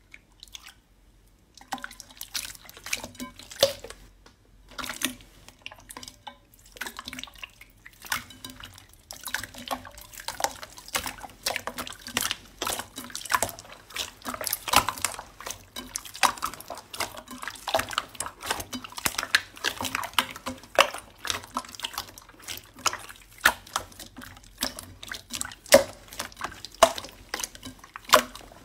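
Hands squishing and kneading slime, making wet, sticky pops and clicks in quick irregular succession. The sounds begin about two seconds in.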